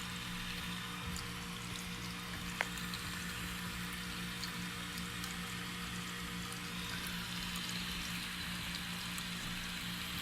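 Steady crackling hiss of water leaking from a water heater's pressure relief valve, over a low steady hum, with a single sharp click about two and a half seconds in.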